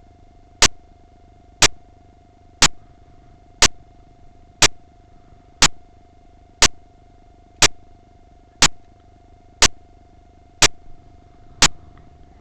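Sharp clicks at an even beat of one a second, twelve in all, over a faint steady hum.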